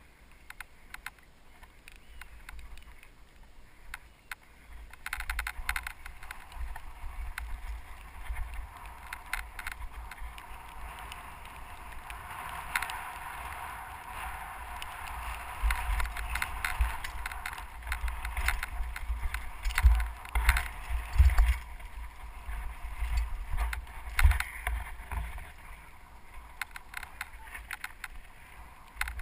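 Bicycle riding fast down a rough grassy hillside track, heard from a helmet-mounted camera: wind buffets the microphone and the tyres hiss over grass and dirt. Frequent rattles and knocks come as the bike hits bumps, and are heaviest a little past the middle.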